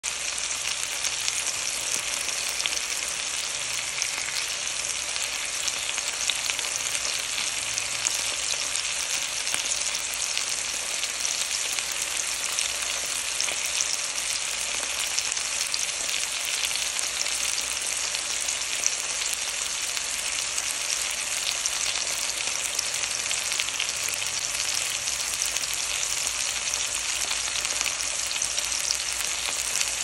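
Seasoned chicken breasts frying in oil in a cast iron skillet: a steady, high sizzling hiss dotted with many small pops and crackles of spitting oil.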